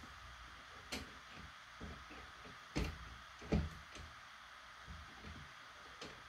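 Long steel flathead screwdriver knocking and clicking inside the wooden buttstock of an Ithaca Model 37 shotgun as it is worked down the stock-bolt hole to find the bolt. There are a handful of separate knocks, the loudest about three and a half seconds in, over a faint steady hiss.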